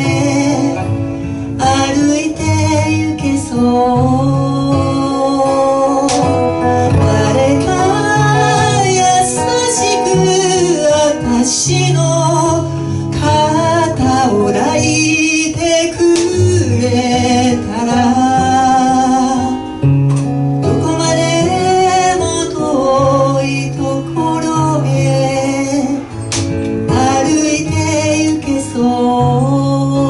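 A woman singing live into a microphone, with acoustic guitar accompaniment and held low notes underneath.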